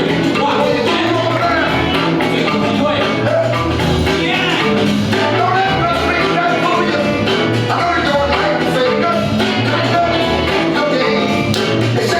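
Upbeat dance music with a steady, pulsing bass beat.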